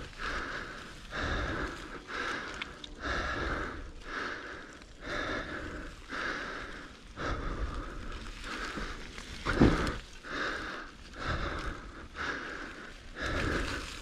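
A rider breathing hard and rhythmically on a mountain-bike climb, about one heavy breath a second, close to the helmet's chin-mounted microphone. One sharper, louder thump comes about two-thirds of the way through.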